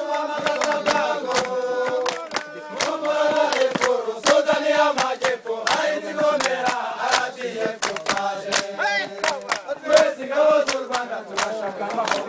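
A group of men singing a chant together, with hand claps throughout.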